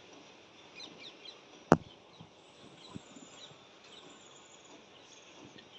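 Faint outdoor ambience with a few faint bird chirps about a second in, and one sharp click a little later, the loudest sound here.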